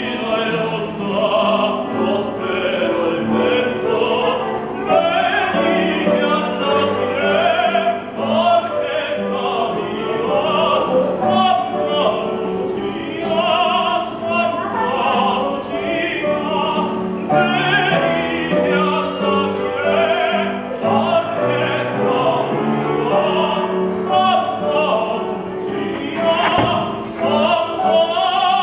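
A male classical singer singing in operatic style with a wavering vibrato, accompanied by an upright piano.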